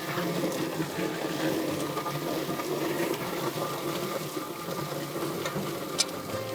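Poultry plucker motor running steadily as it strips feathers from a scalded meat bird, with one sharp click near the end.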